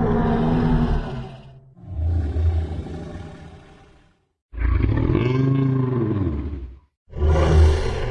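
Mamenchisaurus dinosaur sound effect: four long, deep calls one after another, each fading out before the next. The third call rises and then falls in pitch.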